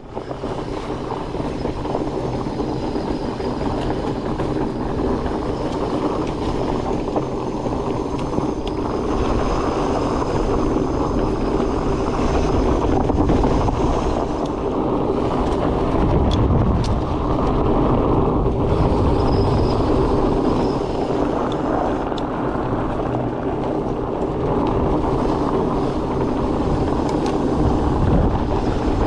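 Fat bike rolling along a trail: a steady rumble of tyres with wind on the microphone, rising to full level within the first second.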